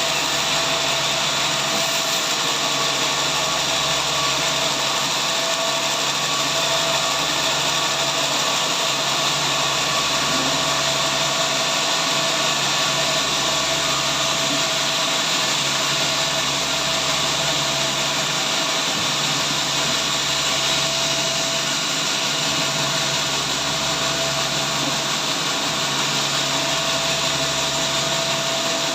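Sawmill saw running steadily, an even mechanical hiss and whine that holds level without change.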